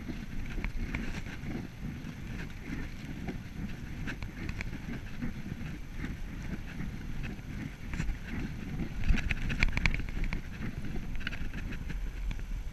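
Steady wind noise on the microphone and tyre rumble from a road bike rolling along a paved path, with scattered light ticks and a denser run of louder clicks about nine seconds in.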